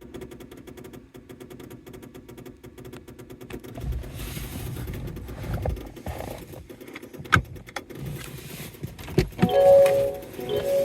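Rapid, even clicking over a steady hum from around the brakes of a Mazda3 switched to accessory mode: an unexplained abnormal noise. It gives way to a low rumble, then a sharp click about seven seconds in and a few held tones near the end.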